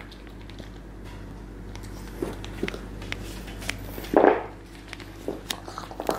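French bulldog puppy chewing a carrot: scattered soft crunches and clicks over a steady low hum, with one louder bite about four seconds in.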